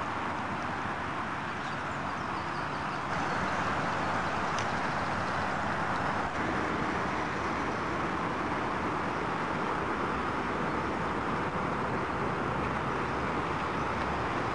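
Scale model Mersey-class lifeboat running under power on the water, a steady motor and propeller-wash noise that gets louder about three seconds in as the boat comes close.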